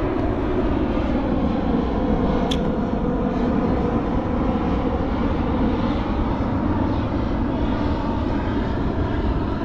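Steady wind buffeting the microphone, an even low noise, with a single sharp click about two and a half seconds in.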